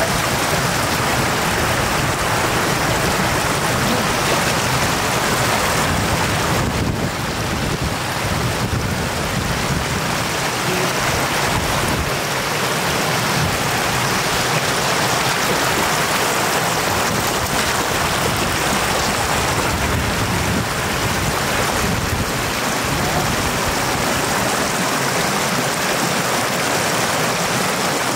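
Shallow floodwater rushing fast across a road: a steady, even rush of water.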